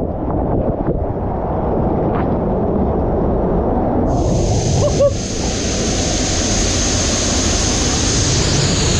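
Waterfall water rushing in a loud, steady roar of noise, with wind buffeting the microphone. About four seconds in, a higher hiss joins and holds.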